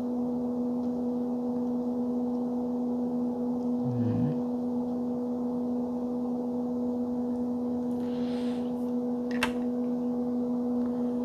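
Steady electrical hum at one constant pitch, with a short low vocal sound about four seconds in and a sharp click near the end.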